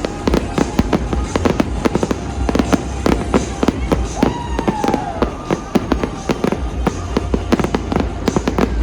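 Fireworks display in full barrage: a dense, rapid string of bangs and crackles, several a second, with a falling whistle about four seconds in.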